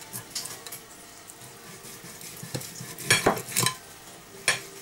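A knife scoring the scaly skin of a whole raw sea bass on a plate: low scraping and crackling, with a few sharp clicks and scrapes about three seconds in and again near the end.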